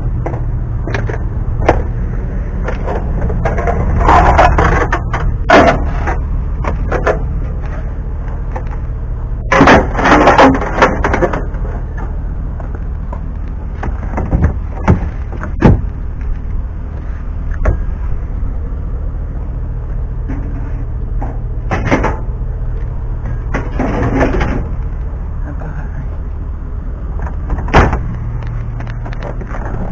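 Aluminum scrap and a rake being pulled out of a plastic trash bin and handled. There are several bursts of clattering and scraping over a steady low rumble.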